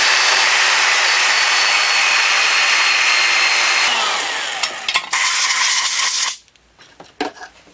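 Electric hand drill spinning a drum grinder on a rod inside the bore of a cast-iron cylinder casting, grinding out leftover casting sand: a steady motor whine over harsh grinding. It winds down about four seconds in, runs again briefly, and stops about six seconds in, leaving a few light clicks.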